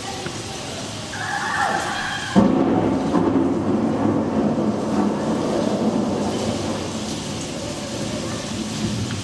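Thunderstorm: steady rain, then a sudden crack of thunder about two and a half seconds in that rumbles on to the end.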